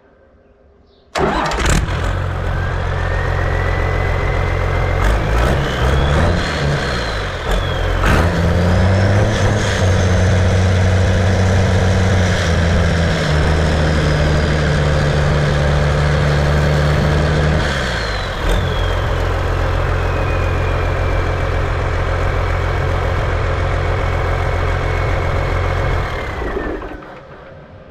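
Freshly rebuilt John Deere 6068T 6.8-litre turbocharged inline-six diesel on a test run. It starts about a second in, is revved up and held at high speed for about ten seconds, drops back to idle, and is shut down near the end. A turbocharger whine rises and falls with the revs.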